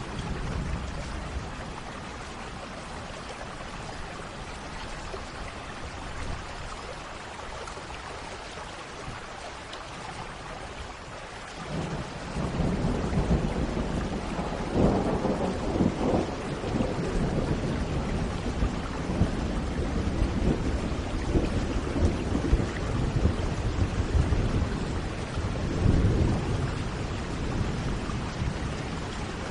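Steady rain falling, with thunder rolling in about twelve seconds in and rumbling on, swelling louder a few times.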